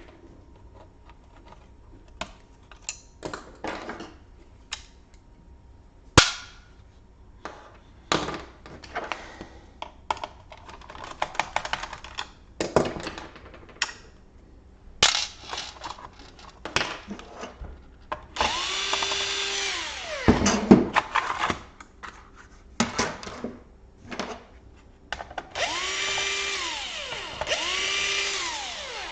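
Small electric screwdriver backing out laptop screws, its motor running in two spells of a few seconds each with the pitch rising, holding and falling. Before that comes a string of sharp clicks and knocks from plastic parts and tools being handled.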